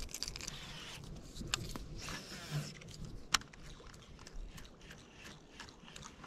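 Quiet small clicks, rustles and scrapes of hands tying a topwater walking lure onto fishing line and handling a baitcasting rod and reel, with one sharp click about three seconds in.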